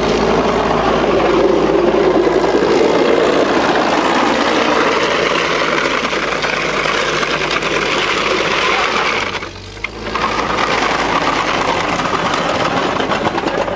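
Tracked over-snow vehicle running close by, its engine going and its steel-cleated tracks clattering as it moves. The noise drops briefly about two-thirds of the way through, then picks up again.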